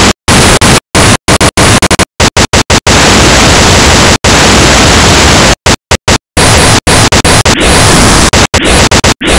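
Loud harsh white noise switched abruptly on and off, broken by many short dead silences of a fraction of a second, with a longer unbroken stretch of a few seconds in the middle.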